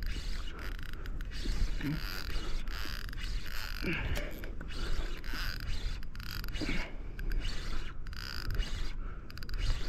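Daiwa Certate SW6000 spinning reel making repeated short bursts of mechanical clicking and whirring as line is worked against a fish holed up under a rock. A steady low rumble of wind and water runs underneath.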